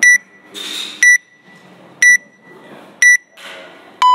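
WOD Proof app's workout timer counting down: four short high beeps a second apart, then a longer, lower beep starting as it hits zero, the signal to start the workout.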